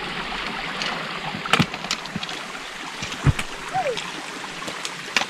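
Shallow creek running over rocks, a steady water noise, with a few sharp knocks from boots and trekking-pole tips striking the wet stones as hikers step through it.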